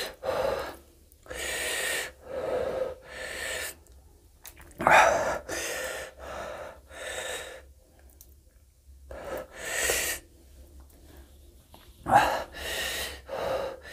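A man breathing hard in sharp, hissing gasps, about a dozen short breaths in irregular clusters, from the burn of the raw green chillies he is eating.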